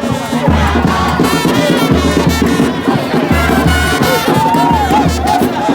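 Loud music with a heavy, pulsing bass beat and a melody over it.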